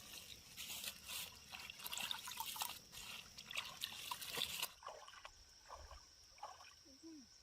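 Water trickling and splashing with many small irregular clicks, cutting off suddenly a little past halfway. After the cut, a quieter steady high buzz remains.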